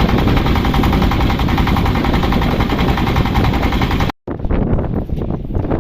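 Loud motor running with a fast, even pulse, cut off abruptly about four seconds in by an edit, after which a rougher, uneven noise follows.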